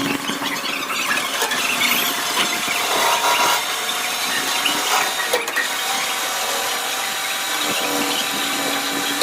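Machine tool cutting through a weld bead in metal: a continuous, shrill squealing cut with several steady whining tones.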